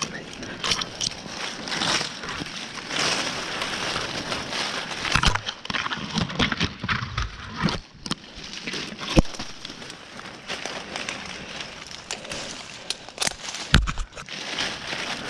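Irregular rustling and clicking of a tree climber moving on his rope and lanyard among the branches, with a few sharper knocks.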